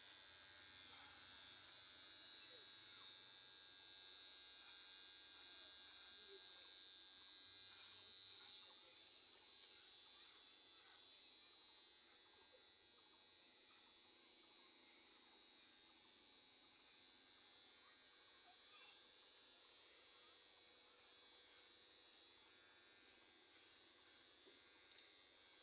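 Faint, steady high-pitched buzz of an electric hair clipper running during a self-haircut, a little louder in the first eight seconds.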